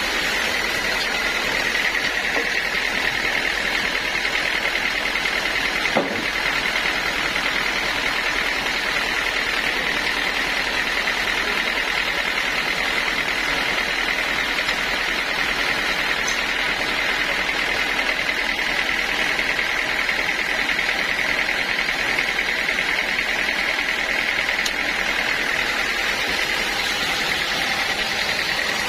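Sawmill saw running steadily with a high, even whine, and a single sharp knock about six seconds in.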